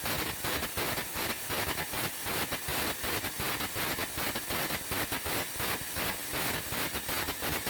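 Air carbon arc gouging a weld joint. The carbon rod's arc crackles and the compressed-air jet hisses without a break, a rough, continuous crackling hiss.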